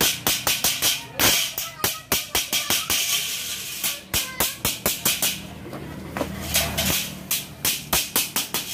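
Small hammer striking a thin galvanized steel furring channel, quick runs of sharp metallic clinks several a second with short pauses between runs.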